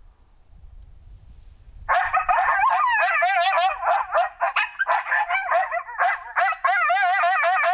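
A coyote group howl played loudly from a FoxPro Fusion electronic caller: a chorus of yips and wavering howls from several coyotes, starting suddenly about two seconds in.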